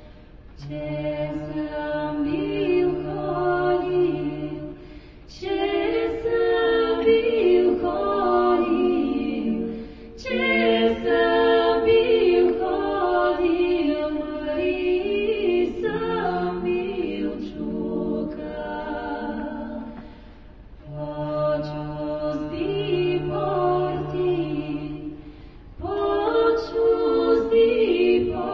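Vocal music: a choir singing unaccompanied in phrases of about five seconds, with a low held note sounding under some phrases.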